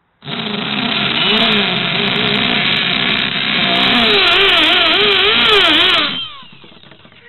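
A handheld power tool runs at speed as it bores into an old mobile phone. Its pitch wavers up and down as the bit bites and bogs under load, and near the end it winds down with a falling pitch.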